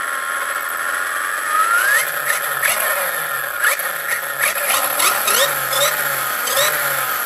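Brushless 2250kv motor and drivetrain of an RC buggy whining as the wheels spin free on a stand under throttle. The pitch rises about two seconds in, then short chirps and blips repeat as the throttle is worked.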